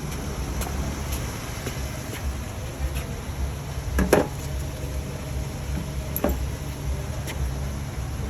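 A steady low rumble with a few light clicks, and a louder double knock about four seconds in, from hand work on a car.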